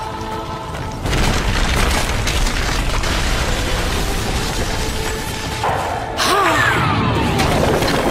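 Heavy rumbling and crashing of rock, a deep booming sound effect as huge stone slabs break loose and pack together into a giant sphere, over a music score. It swells about a second in and surges again about six seconds in, with a falling whistling tone near the end.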